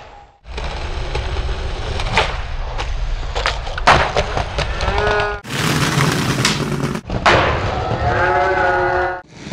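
Skateboard wheels rolling on concrete with a steady low rumble, broken by sharp clacks of the board popping and landing. Several short takes are cut together. A held, pitched squeal-like sound rises out of the rolling twice, briefly near the middle and for about a second and a half near the end.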